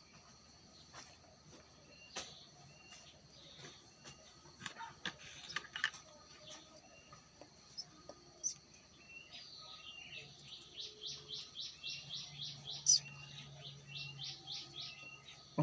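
Small birds chirping with scattered short high calls. Near the end one bird gives a quick run of repeated notes, about four to five a second.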